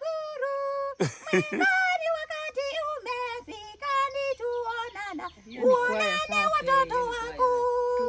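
A young woman singing in a very high-pitched soprano voice, moving between sustained notes and holding a long note near the end.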